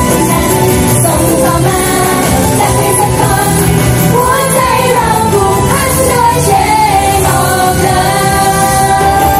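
Idol-pop song played loud, with a group of women singing over the music; the vocal line is clearest in the middle.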